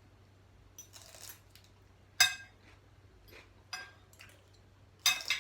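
Cutlery clinking against plates and bowls while eating: a few scattered sharp, ringing clinks, the loudest about two seconds in and another near the end.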